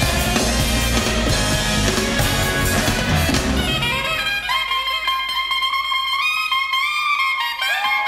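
Live big-band jazz: the full band with drums, bass and horns, then about halfway in the rhythm section drops out and the horns carry on alone in high held notes that bend and slide, the closing passage of the tune.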